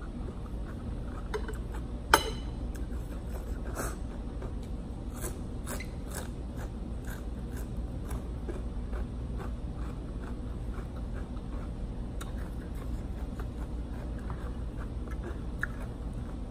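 A person chewing a mouthful of crunchy cucumber salad, with small irregular clicks throughout, and one sharp click about two seconds in, over a steady low hum.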